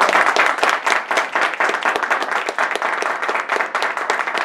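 Congregation clapping and applauding: many hands clapping in a dense, uneven patter.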